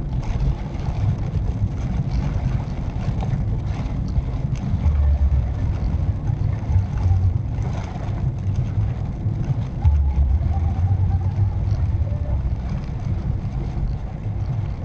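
Maruti Suzuki Swift Dzire driving on a wet road, heard from inside the cabin: a steady low engine and road rumble with tyre noise.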